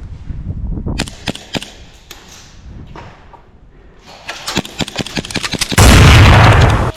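Airsoft gunfire: a few separate shots about a second in, then rapid strings of shots from about four seconds, ending in a very loud, distorted stretch near the end.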